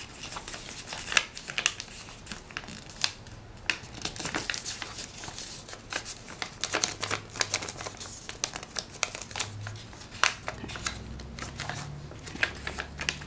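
A sheet of paper rustling and crinkling as hands fold it and press down the creases, with irregular sharp crackles and light taps throughout.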